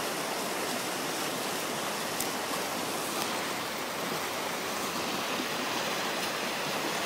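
Whitewater rushing steadily through a river rapid, an even, continuous rush of water.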